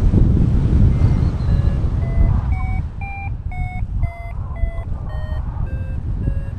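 Paragliding variometer beeping about twice a second, signalling that the glider is climbing in lift; the pitch of the beeps rises and then falls back as the climb strengthens and eases. Behind it is a steady rush of airflow on the microphone.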